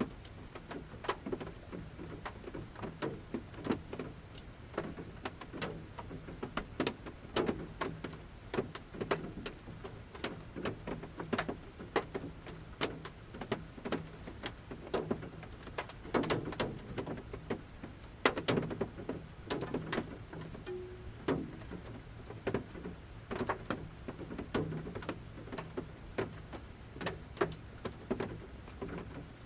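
Large raindrops falling from the forest canopy onto the roof of a camper van, heard from inside: irregular taps, several a second, some much louder than others, each with a low ring from the roof.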